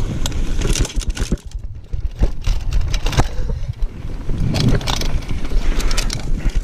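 Mountain bike running fast down a dirt downhill trail: a continuous rumble from the tyres on the dirt, with rapid clicks and clatter from the bike as it hits bumps and roots. It eases briefly about one and a half seconds in, then picks up again.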